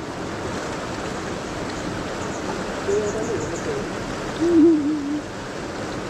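Steady rush of flowing river water, with two short low hums near the middle, about a second and a half apart, the second louder.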